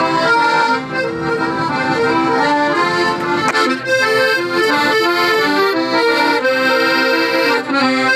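Piano accordion playing a tune: sustained chords under a melody, with the notes changing several times a second.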